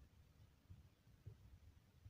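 Near silence, with a few faint low bumps from hands handling the grinder.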